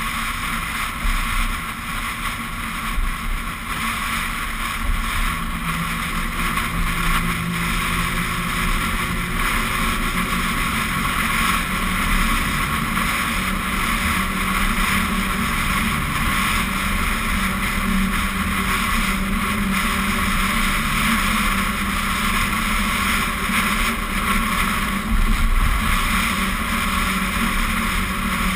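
Steady wind and road noise at a hood-mounted GoPro on a moving vehicle. From about six seconds in, a steady hum joins it as the tyres run on the Mackinac Bridge's open steel-grate deck.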